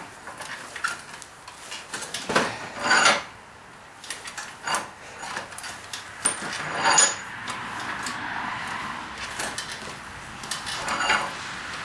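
Metal parts of an old blacksmith vise being handled: scattered clanks and knocks, with a few seconds of steady scraping about two-thirds of the way through.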